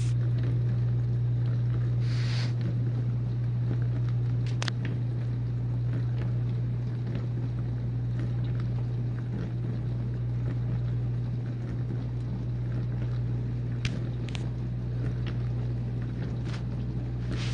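Whirlpool dishwasher running its pre-wash: the wash pump's steady low hum under the hiss of water spraying inside the tub, with a few faint clicks.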